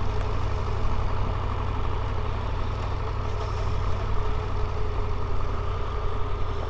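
Steady engine and road noise of a vehicle on the move: a constant low rumble with a faint steady hum above it.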